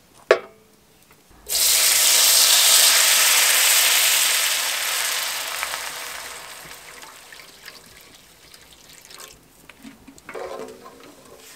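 A sharp knock, then water poured from a jug into a pot of hot melted butter. It starts suddenly as a loud rushing, spluttering pour about a second and a half in, then fades slowly over several seconds as the pour ends and the foam settles.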